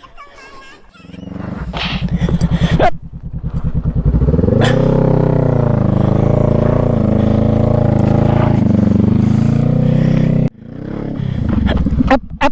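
Motorcycle engine revving hard under load, climbing steeply about four seconds in and held at high revs for about six seconds before dropping off suddenly, then revving up again near the end.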